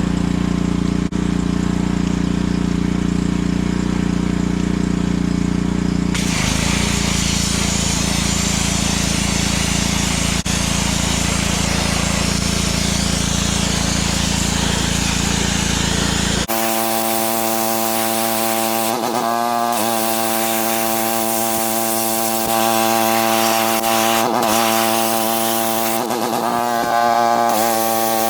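Pressure washer's small engine running steadily. From about six seconds the high-pressure spray hisses loudly as it blasts wet sand. After a cut at about 16 seconds, a higher, steady machine note with brief wavers in pitch takes over.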